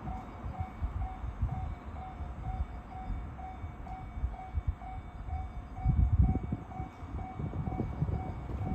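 Japanese level-crossing warning bell ringing in a steady run of evenly spaced dings, over the low rumble of a 521-series electric train approaching the crossing, which grows louder about six seconds in.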